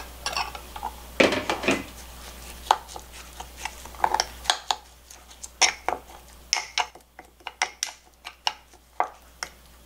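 Metal spoon clinking and scraping against a small ceramic bowl while a thick seasoning sauce is stirred. It makes a run of sharp, irregular clicks, busiest in the first couple of seconds.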